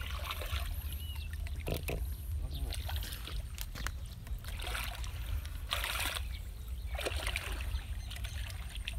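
Hands sloshing and splashing in shallow muddy water, groping along the bottom, in irregular bursts with the loudest splash about six seconds in, over a steady low rumble.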